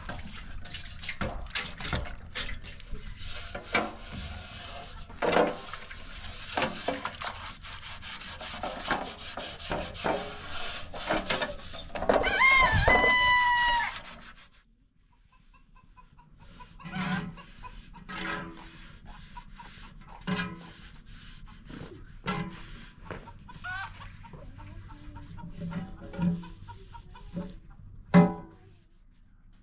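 A rooster crowing once, about twelve seconds in: a loud call of about a second and a half that rises and then falls, over a busy run of knocks and clicks. The sound drops away suddenly about two seconds later, and after that only scattered short knocks are heard.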